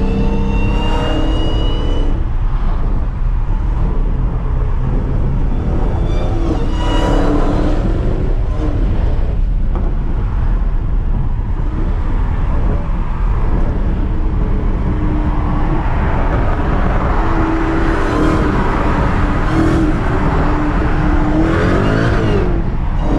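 Dodge Charger SRT Hellcat's supercharged V8 being driven hard over steady loud road noise, the revs rising and falling several times.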